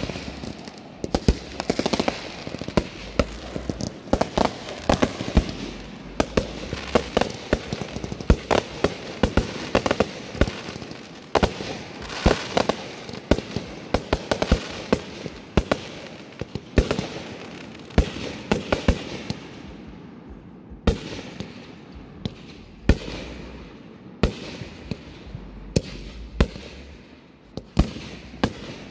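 Aerial fireworks bursting overhead: a dense run of sharp bangs and crackling stars that thins out, about twenty seconds in, into separate bangs a second or so apart.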